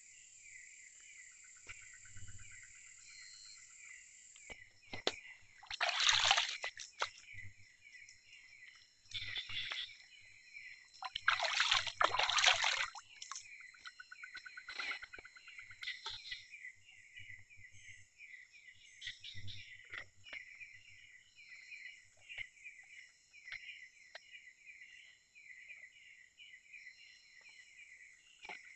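Insects chirping in a fast repeating pulse, with three bursts of water splashing about six, nine and twelve seconds in, the last the longest.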